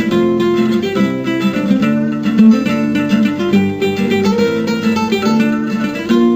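Instrumental ringtone music: a plucked guitar melody with quick changing notes and no singing.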